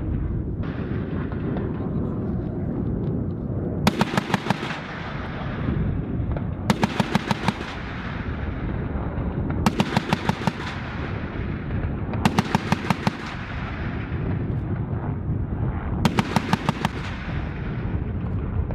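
M197 20 mm Gatling cannon of an AH-1Z Viper attack helicopter firing five short bursts, each under a second and about three seconds apart, over the steady noise of the helicopter's rotor.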